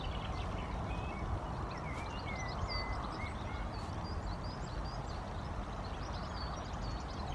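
Small birds chirping and singing repeatedly over a steady low outdoor background rumble.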